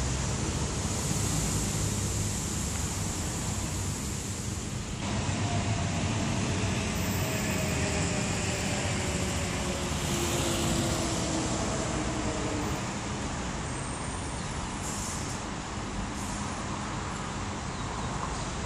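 Steady background road traffic noise from nearby city streets, with a faint engine drone whose pitch falls slowly through the middle.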